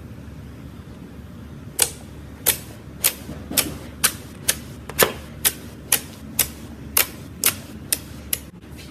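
Clear slime being pressed and poked, popping in a regular series of sharp clicks, about two a second, starting about two seconds in.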